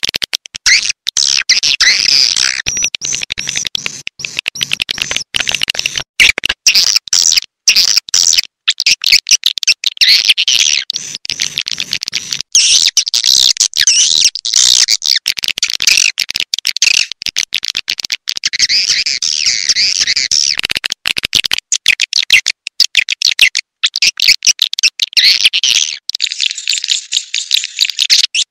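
Swiftlet lure call: a recording of swiftlets twittering, played to draw birds to a swiftlet house. It is a dense, high-pitched, rapid chattering of chirps, broken by many brief dropouts.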